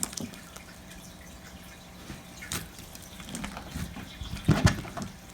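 Clear blue slime being squished and kneaded by hand with music-note confetti worked in: scattered wet, sticky clicks and pops, loudest in a quick cluster near the end.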